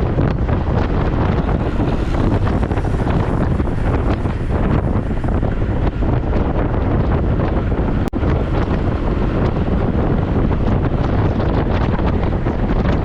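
Wind buffeting the microphone of a camera riding along on a road bike at speed, a loud steady rush, with one brief click about eight seconds in.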